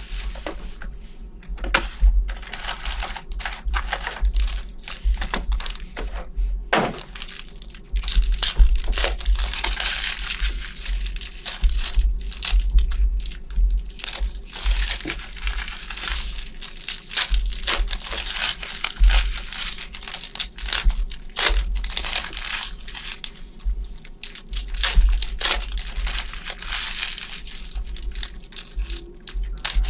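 Plastic card-pack wrappers and packaging being torn open and crinkled by hand. The rustling and crackling is dense and irregular, with a low handling rumble underneath.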